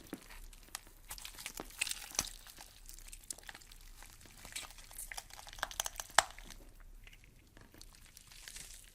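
Horror sound effect of irregular crackling and crunching, like something being crumpled or torn, with a sharper snap about six seconds in.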